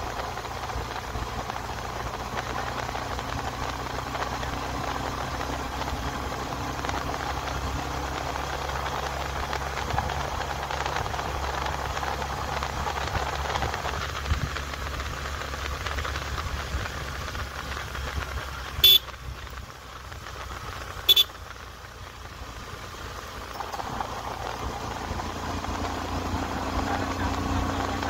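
Commuter motorcycle engine running with wind rush while riding, the engine note easing off for several seconds in the middle. Two short, loud horn toots about two seconds apart come roughly two-thirds of the way through.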